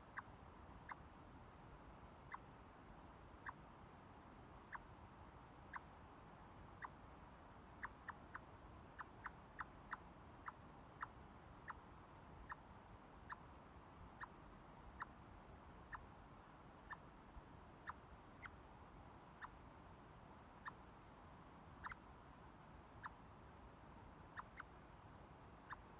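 Chipmunk giving a long series of short, sharp chip calls, about one a second, quickening to about two a second for a few seconds near the middle.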